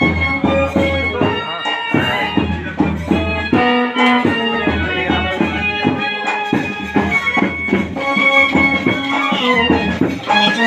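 Loud instrumental music with a regular drum beat under a held, shifting melodic line.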